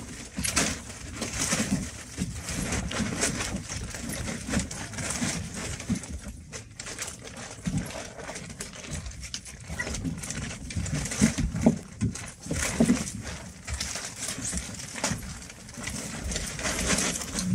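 White Swiss Shepherd puppies and an adult dog playing around a nylon play tent on wooden decking: claws scrabbling and pattering on the boards and the tent fabric rustling, with a few short low-pitched calls.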